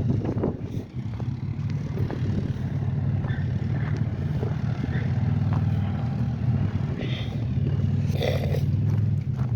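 A vehicle engine running steadily at idle, a low even hum that does not rev.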